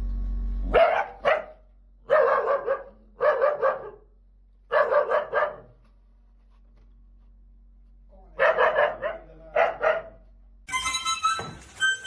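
A dog barking in a series of about seven drawn-out calls, in groups with pauses between them. Music with sustained reedy notes starts about a second before the end.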